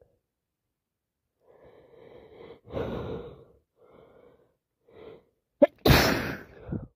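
A woman with a summer cold builds up to a sneeze with four gasping in-breaths, the second the loudest, then sneezes loudly once near the end.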